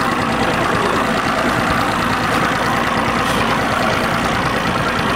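Motorboat engine running steadily while towing a kneeboard rider on a rope, heard together with water and air noise.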